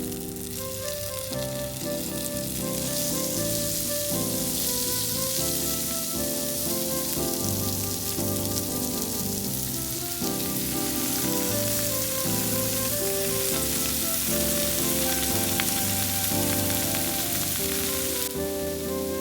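Food sizzling as it fries in a pan, for the salmon and spinach butter sauté; the sizzle grows stronger a few seconds in and drops back near the end. Light background music plays under it.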